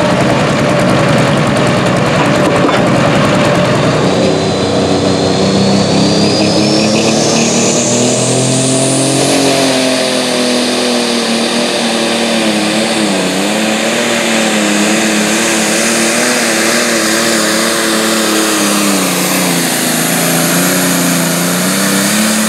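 Turbocharged diesel engine of a John Deere light pro stock pulling tractor at full throttle under load. A high whine rises over several seconds, and the engine note wavers up and down as the sled is dragged. For the first few seconds, before this pull, another engine is running.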